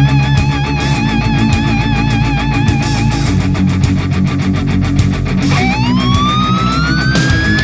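Background heavy-metal music: distorted electric guitar with a held, wavering lead note, then a lead line sliding steadily upward about five and a half seconds in.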